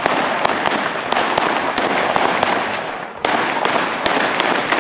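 Rolling salute fired by a line of hand-held black-powder salute guns (Handböller): sharp shots following one another down the line, about three or four a second, with echo filling the gaps. The firing dips briefly just before three seconds in, then resumes with a loud shot.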